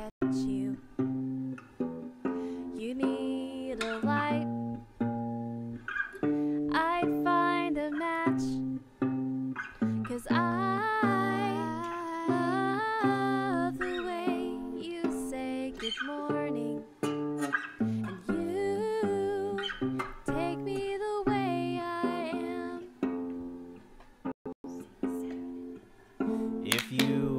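Background music on acoustic guitar: a steady run of picked, plucked notes.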